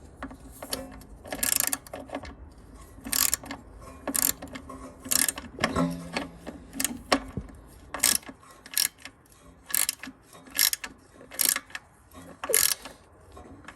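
Ratchet wrench clicking in short repeated strokes, about one a second, as a nut on the blade brake cable adjuster is tightened.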